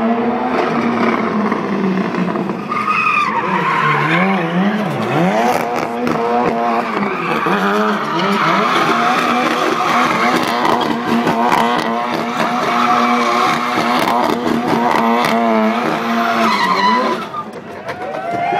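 Ford Fiesta rally car doing donuts: the engine is held at high revs, wavering up and down, with the tyres squealing and skidding on asphalt. The engine eases off briefly near the end.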